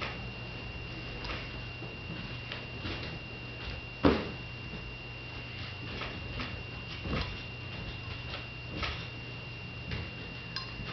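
A cat leaping and landing on a bed, giving scattered soft thumps and clicks with one sharper knock about four seconds in, over a steady high whine and a low hum.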